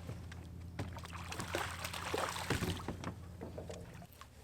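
Water splashing and scattered knocks as a hooked blue catfish is brought up beside a boat, strongest in the middle, over a steady low hum that stops near the end.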